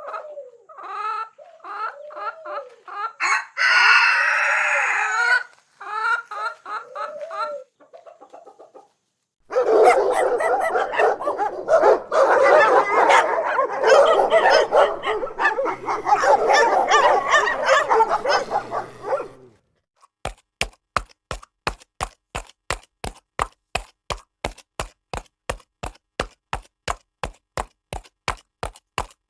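Chickens: hens clucking with a rooster crowing once, about three to five seconds in, then about ten seconds of a whole flock clucking and squawking together. From about twenty seconds on, a different sound: evenly spaced sharp clicks, about two or three a second.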